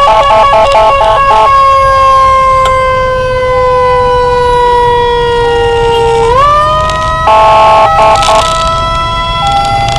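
Electronic emergency sirens on an ambulance escort run. A rapid alternating pattern plays for the first second or so, then a long held tone glides slowly down in pitch and jumps back up about six seconds in, with rapid alternation again around seven to eight seconds. Road and engine noise runs underneath.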